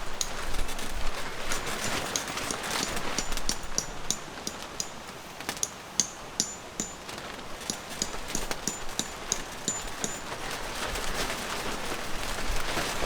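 Eel sizzling on a camping grill, with a steady hiss and many irregular small pops and crackles.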